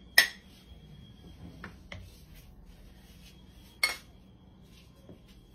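A metal spoon clinking against a cooking pot and a plate as rice is scooped out. A few sharp clinks: the loudest just after the start, two lighter ones in the middle, and another strong one about four seconds in.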